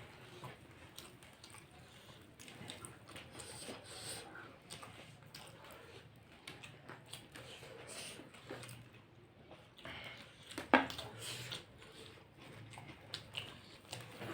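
People eating fried snacks such as cutlets and samosas: soft chewing and biting with scattered small clicks, and one sharp click about eleven seconds in.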